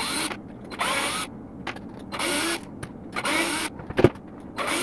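Cordless drill-driver running in about five short bursts, each under half a second, its motor pitch rising and falling as it backs small screws out of an RC truck's plastic front bumper. A sharp click comes about 4 seconds in.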